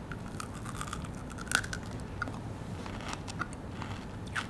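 Close-up crunching and chewing of a dark chocolate bar filled with pistachio cream and crisp kunafa pastry. There are scattered sharp crackles, and the sharpest comes about a second and a half in.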